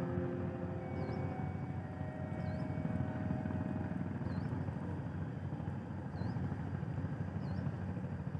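The last of a large passenger ship's horn blast, its third departure whistle, dies away over the first couple of seconds. Then a steady low rumble from the docked ship carries on, with a faint high chirp repeating every second or two.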